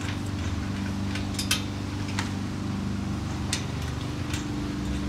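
About five sharp metallic clicks and clinks, irregularly spaced, as hardware is fitted to a steel play-tower frame, over a steady low hum.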